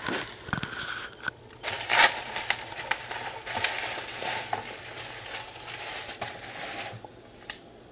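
Bubble wrap and plastic packaging crinkling and crackling as it is handled and pulled off, with many small sharp crackles.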